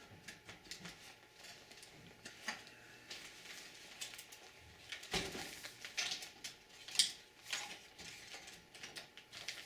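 Scattered clicks and knocks of plastic computer-case parts being handled and pulled loose. The loudest is a knock about five seconds in, followed by a sharp click about two seconds later.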